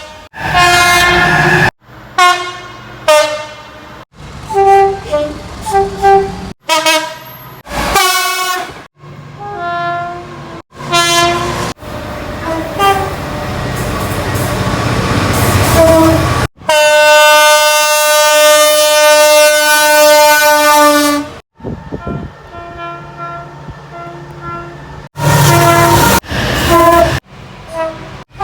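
A string of British diesel train air-horn blasts cut one after another: short blasts and multi-note sequences at changing pitches. About twelve seconds in, the rumble of an approaching train rises, followed by one long steady horn note of about five seconds.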